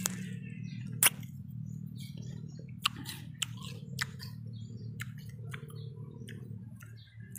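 A person biting into and chewing crisp, juicy bilimbi fruit: a sharp crunch about a second in, then irregular wet chewing clicks, over a steady low hum.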